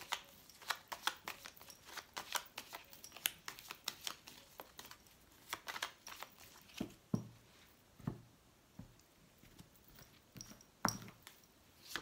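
A deck of cigano (Lenormand) oracle cards being shuffled by hand: quiet, irregular card clicks and slaps, with a few duller taps about halfway through.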